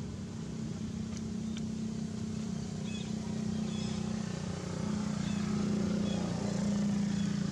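A motor engine running steadily: a low hum that shifts a little in pitch about five seconds in and grows slightly louder after that.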